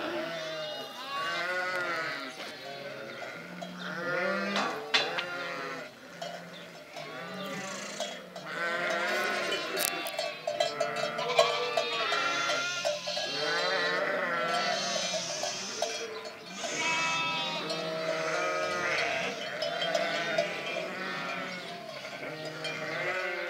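A large flock of ewes and lambs bleating, many calls overlapping at different pitches.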